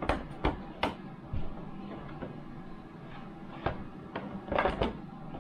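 Sharp clicks and knocks of a round flush-mount ceiling light fixture being handled and pushed up against the ceiling: three in the first second, a couple of single ones in the middle, and a quick cluster near the end.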